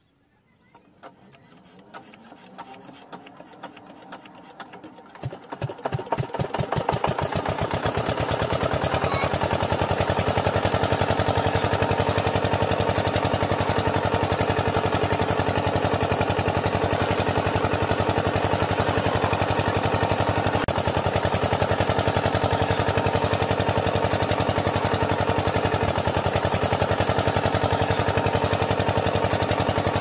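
Diesel generator starting. It is faint at first, then about five seconds in the engine fires with separate beats that quickly speed up, and it settles into steady running with a fast, even beat.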